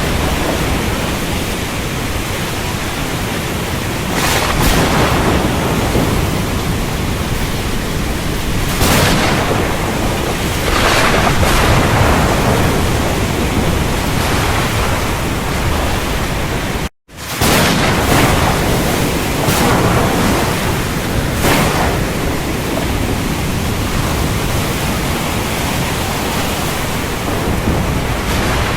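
Heavy rain pouring steadily in a thunderstorm, with several short cracks of thunder breaking through. The sound cuts out completely for a split second about seventeen seconds in.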